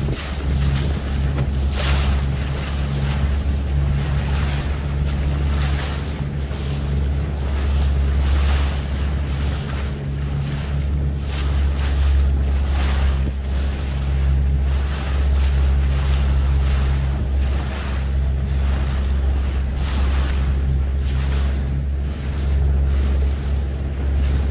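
Boat engine running steadily, a low hum, with wind gusting on the microphone and water splashing against the hull.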